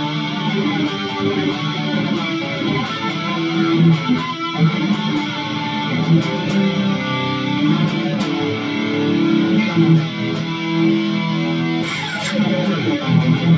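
ESP LTD SN-1000 electric guitar played through an amp, chugging a rhythm part for a tone demo.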